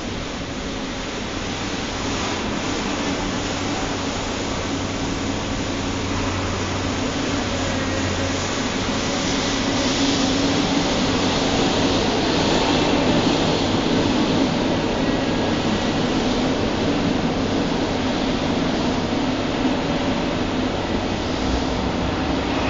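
Train running on a steel elevated railway, a steady rumble with faint steady tones that builds to its loudest about halfway through, then eases a little.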